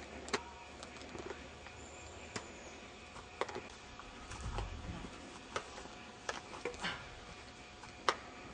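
Badminton rackets striking a shuttlecock in a rally: a string of short, sharp pocks, roughly one every second or so.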